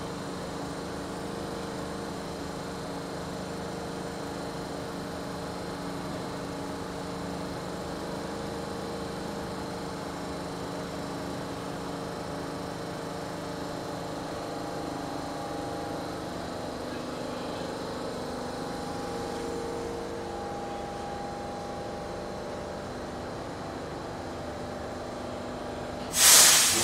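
R62A subway train standing in the station with its doors open: a steady hum with several held tones. About 26 seconds in, a sudden loud hiss of released air cuts in and quickly fades.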